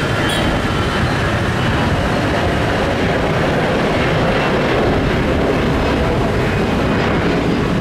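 Airbus A321's two CFM56 turbofan engines climbing out after takeoff: a loud, steady rumble with a faint steady whine above it.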